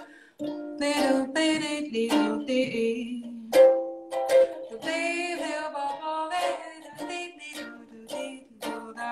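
A woman singing her own song while accompanying herself on a strummed ukulele.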